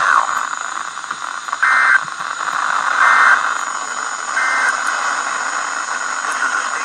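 Three short, screechy Emergency Alert System SAME data bursts, about a second and a half apart. They are the end-of-message code that closes the alert, heard over steady radio hiss.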